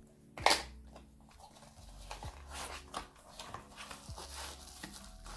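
Crinkling and rustling of a small cardboard product box and its packaging being opened by hand, with one sharp, loud crackle about half a second in.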